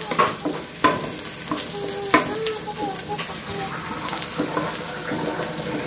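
Sliced garlic and shallots sizzling in hot oil in a black wok, stirred with a wooden spatula that scrapes and taps the pan, with sharp taps about a second and two seconds in. The aromatics are being fried until fragrant as the seasoning base for a vegetable soup.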